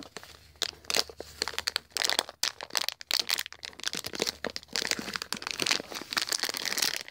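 Plastic blind bag crinkling, with many irregular sharp crackles, as it is torn open and the figure is pulled out.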